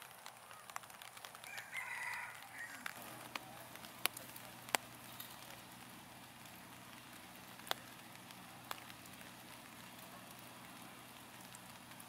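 Steady light rain hiss with a few sharp drip-like ticks, and one short bird call about two seconds in.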